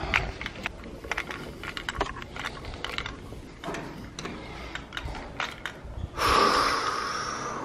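Scattered light clicks and knocks of moving about with a pet stroller and pressing the elevator call button, then about six seconds in a sudden louder rushing noise with a steady whine from the arriving elevator, slowly fading.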